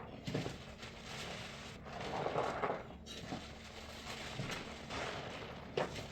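Wet sponge full of soap paste being squeezed and worked, with irregular squelching swishes and a few sharp clicks.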